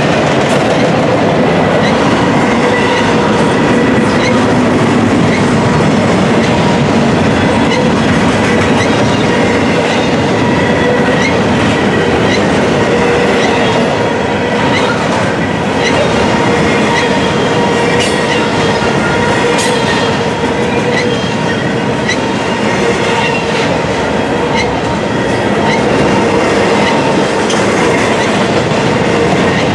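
Intermodal container freight cars rolling past at speed, their steel wheels clicking over rail joints, with a steady high ringing squeal from the wheels on the rails.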